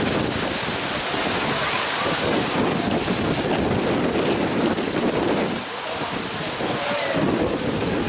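Strong dust-storm wind blowing hard and buffeting the microphone, a steady rushing that eases briefly about two-thirds through before picking up again.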